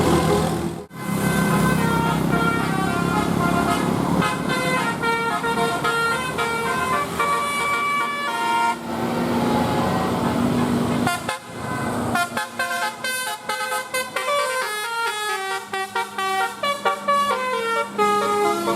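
Indonesian 'telolet' multi-tone musical bus horn playing a melody of distinct held notes. It breaks off briefly about a second in and again about eleven seconds in, then plays quicker, choppier notes.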